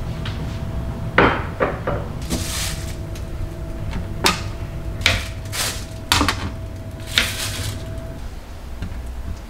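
Metal kitchen tongs clicking and tapping against a metal baking tray as rice cakes are laid out on it, with a couple of short rustles. Under it runs a steady low hum with a faint tone that stops near the end.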